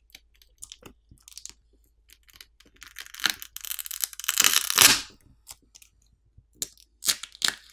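Smartphone battery adhesive tearing as a battery is pried out of its frame. Faint clicks and scrapes of a plastic pry tool come first, then about two seconds of loud crackling and tearing as the battery comes free, then a few sharp clicks near the end.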